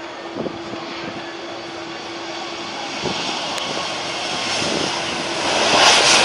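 Jet airliner's engines growing steadily louder as the aircraft approaches, the rushing hiss rising sharply near the end.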